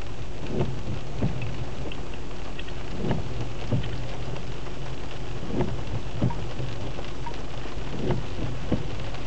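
Heavy rain drumming steadily on a car, heard from inside the car. A pair of short, falling sweeps repeats about every two and a half seconds over the rain.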